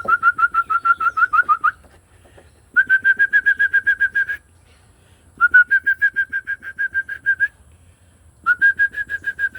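A songbird singing loud, rapid series of clear whistled notes, about nine notes a second, in four phrases of roughly two seconds with short pauses between.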